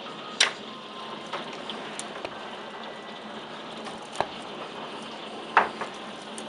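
Heavy rain hissing steadily, with hailstones banging sharply about five times, loudest about half a second in and about five and a half seconds in.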